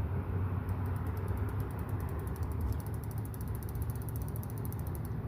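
Johnson push-button spincast reel being cranked to retrieve the line, its gears and anti-reverse pawl giving a rapid ticking that starts about a second in, quickens, and stops near the end.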